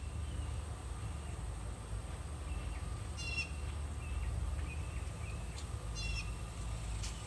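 A bird calling with short, high notes that come about every three seconds, with fainter notes in between, over a steady low rumble.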